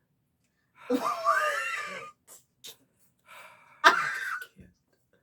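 A person's high-pitched, wheezy laughter in two bursts: one about a second in with a squealing pitch that rises and falls, and a sharper, louder one near four seconds in.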